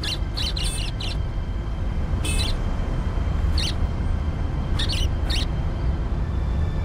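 Budgerigar chirping: short, high chirps in scattered bursts, the longest about two seconds in, over a steady low rumble.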